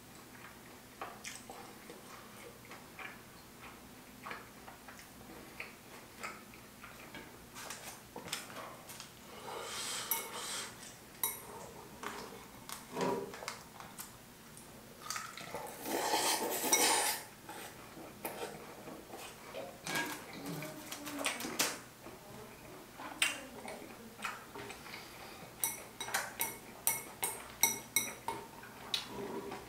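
Metal chopsticks clicking and scraping against a ceramic noodle bowl as cold noodles with seaweed are mixed and lifted, with a run of quick clicks near the end. Eating sounds come in between, with a longer noisy stretch of slurping a little past the middle.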